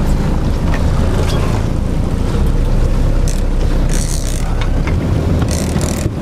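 Fishing boat's engine running steadily, with wind rumbling on the microphone.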